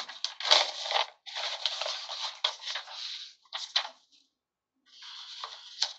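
Sheets of paper rustling and being shuffled, in irregular bursts with a short pause about four seconds in.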